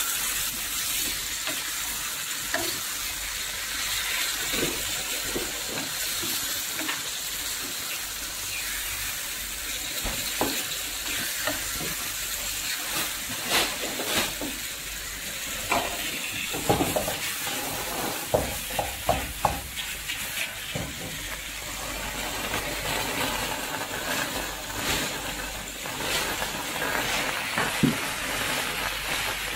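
Fish, tomatoes and bottle gourd sizzling in their own juices in a frying pan over a gas flame: a steady hiss with scattered pops and crackles, thickest around the middle.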